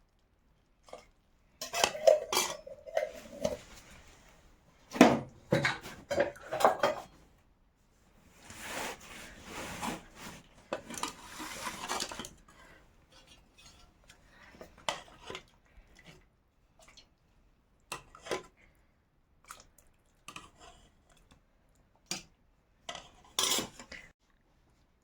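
Metal utensils and dishes clinking and knocking, with a short ringing clang about two seconds in and a longer scraping stretch from about eight to twelve seconds in.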